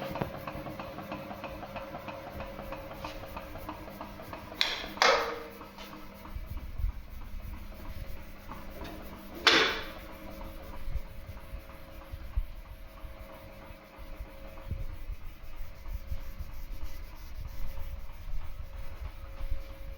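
Artur Huster FB3 vintage bandsaw and filing machine running with a steady hum and a rubbing, rasping sound of work. Two short, loud screeches that fall in pitch cut in about five and nine and a half seconds in.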